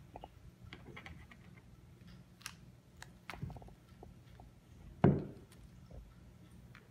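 Scattered soft taps and clicks from a cat's paws and a feather wand toy on a hardwood floor as the cat plays, with one louder thump about five seconds in.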